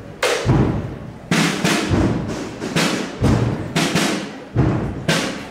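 Procession drums beating a slow march, bass drum and snare strokes about twice a second.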